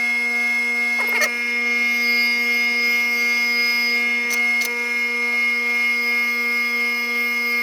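Grinder running a fine-grit diamond wheel with a steady hum, while a high-speed steel tool bit is ground against it, giving a few brief scraping touches about a second in and again around four and a half seconds.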